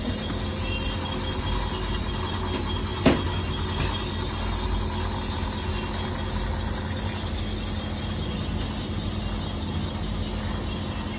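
Portable single-cylinder reboring machine running a cut in a two-wheeler engine block: its half-horsepower single-phase electric motor and boring-bar drive give a steady hum. A single sharp click sounds about three seconds in.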